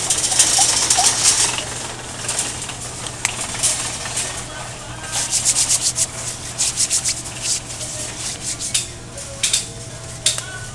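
Close rubbing and scraping handling noise. It starts with a scratchy rub, then a quick run of short scratchy strokes about five seconds in and a few more near the end, over a steady low hum.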